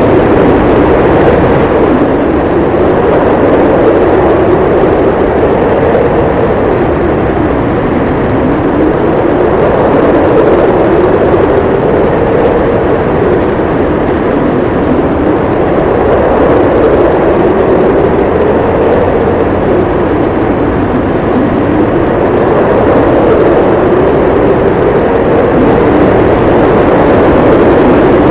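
Snowstorm wind howling, a loud steady rush whose pitch slowly rises and falls.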